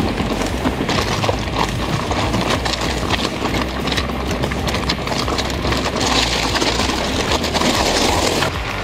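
Mountain bike ridden over a rough dirt trail: tyres rumbling and crunching on the ground, with constant small knocks and rattles from the bike over the bumps. The hiss of tyres and wind on the action camera grows louder from about six seconds in until near the end.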